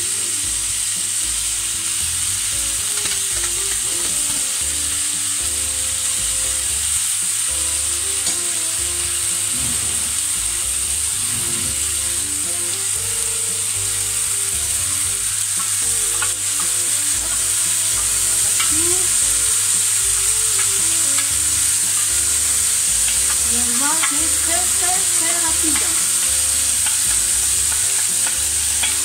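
Steamed leek and carrot strips sizzling in hot olive oil in a stainless steel frying pan, a steady hiss that grows a little louder about two-thirds of the way through.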